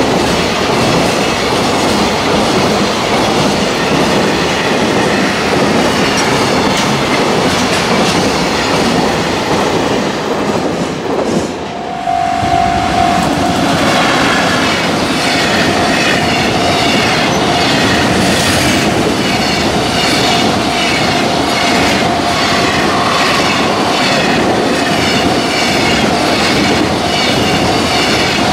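Long container freight trains passing, the wagons' wheels clattering over the rail joints in a steady rhythm. About twelve seconds in the sound breaks briefly and a second freight train passes closer, with its joint clatter sharper and a steady high tone running under it.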